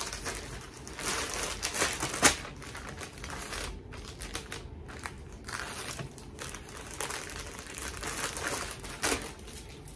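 Packaging crinkling and rustling as a sold sweater is packed for shipping, with two sharp clicks, the louder about two seconds in and another near the end.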